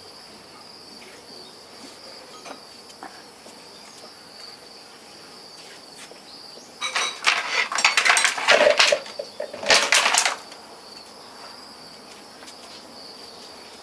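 Steady high-pitched insect trilling throughout. About seven seconds in, a loud burst of rapid clattering and scraping noise lasts for about three seconds.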